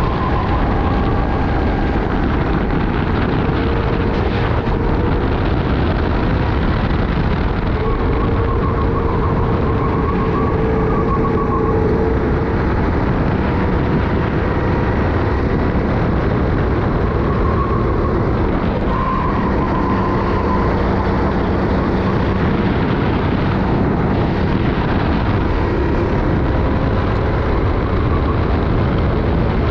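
Sodi racing kart's engine running hard under race conditions, its pitch rising and falling through the corners, heard onboard over a heavy, steady rush of wind on the helmet-mounted camera.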